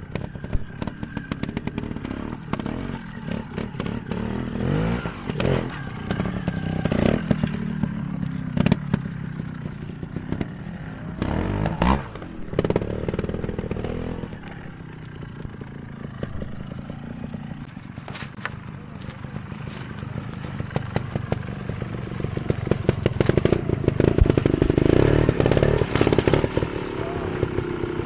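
Trials motorcycle engine revved in repeated short bursts, the revs rising and falling as the bike picks its way over rocks, with clatter and knocks of the bike on rock. The engine is loudest near the end.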